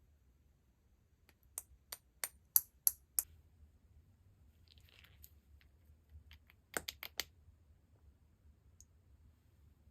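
Sharp clicks and taps of small hard objects being handled: about six quick taps in a row, a faint rustle, then a tight cluster of three or four clicks.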